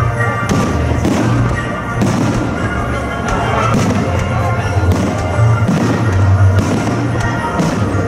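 Fireworks bursting in a display, several sharp bangs heard over loud music with a strong bass line.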